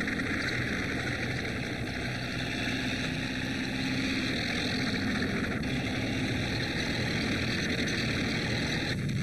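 A steady engine drone with no change in pitch, under the hiss of an old film soundtrack.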